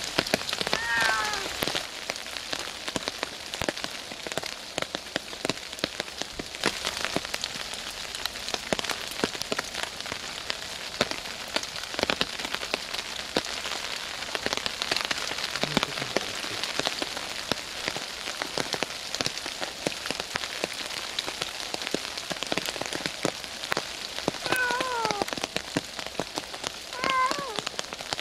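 Heavy rain falling steadily on leaves and undergrowth, full of sharp individual drop hits. A cat meows about a second in and twice more near the end, each call falling in pitch.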